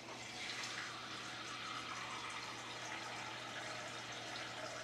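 Kitchen tap running steadily, water pouring into a container.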